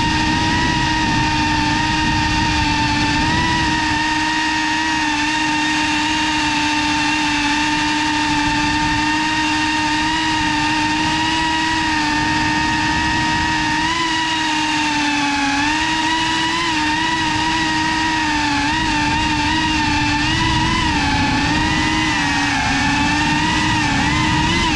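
GEPRC CineLog35 cinewhoop FPV drone's motors and ducted propellers whining steadily, heard from the onboard camera. The pitch holds mostly level and wavers up and down with throttle changes, more often in the second half.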